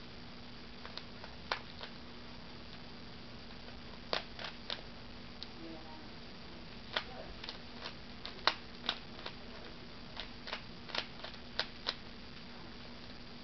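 A 3x3x3 Rubik's Cube being turned by hand: irregular sharp clicks of the layers snapping round, sometimes single, sometimes several in quick succession.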